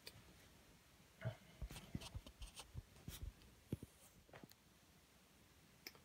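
Near silence, broken by a scattered run of faint clicks and light knocks from about one second in to about four and a half seconds in, and one small click near the end.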